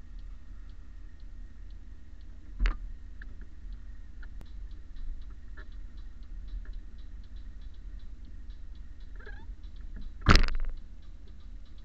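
Steady fast ticking, about three ticks a second, over a low hum inside a stationary car. A sharp knock comes about two and a half seconds in, and a louder thump about ten seconds in.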